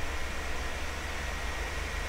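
Steady white noise for sleep: an even, unchanging hiss with a deep rumble underneath and a faint high steady tone.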